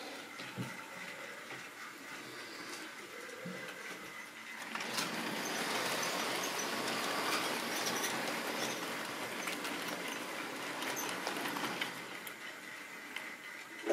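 Model railway wagons rolling past close by, wheels clicking and rattling over the track. The sound swells about five seconds in and falls away near the end as the train clears.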